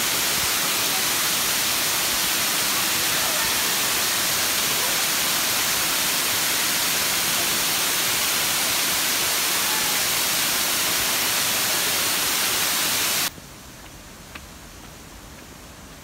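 Waterfall rushing steadily and loudly, with close, hissy falling water. About 13 seconds in it cuts off suddenly to a much quieter background with a few faint ticks.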